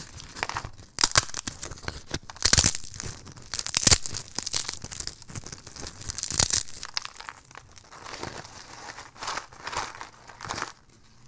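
Thin, dry, crispy soap slices being snapped and crumbled between the fingers: irregular sharp cracks and crunches, loudest in the first half and thinning out towards the end.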